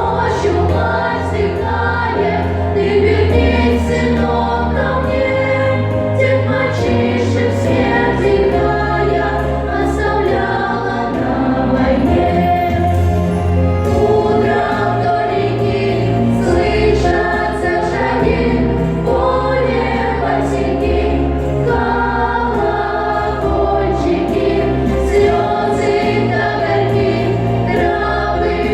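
A song sung by voices in chorus over an instrumental accompaniment, with a steady bass line moving note to note.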